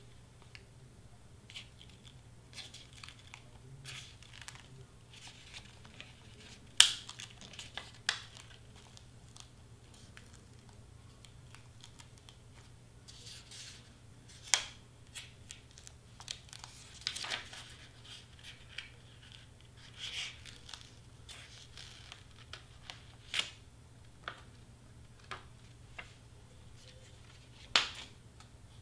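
Scattered light clicks, taps and short rustles of hands handling vinyl and cardstock pieces on a work table, the sharpest click about seven seconds in and another near the end, over a faint low hum.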